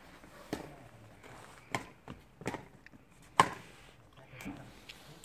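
Badminton rackets striking a shuttlecock back and forth in a rally: four sharp hits roughly a second apart, the fourth the loudest.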